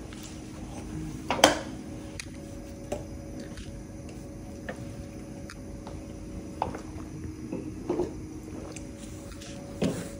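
A handful of separate light knocks and clinks of hard objects being handled, the loudest about a second and a half in, over a steady low hum.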